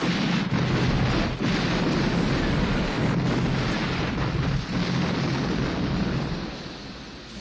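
A large explosion on a film soundtrack: it starts suddenly, then rumbles on as dense noise for several seconds before dying down near the end.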